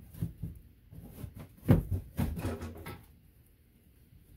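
A string of irregular knocks and scrapes as a drop-ceiling panel is wiggled loose in its metal grid, the loudest knock a little under two seconds in. The knocking stops after about three seconds.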